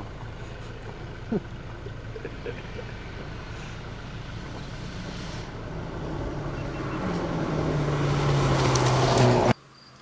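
Fiat Egea 1.4 T-Jet rally car's turbocharged four-cylinder engine approaching at speed, growing steadily louder over several seconds with a steady engine note. The sound breaks off abruptly just before the end, leaving a much quieter background.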